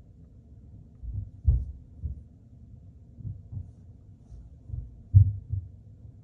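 Muffled low thuds and rubbing from a covered phone microphone being jostled. They come in uneven clusters, the loudest about one and a half seconds in and just after five seconds.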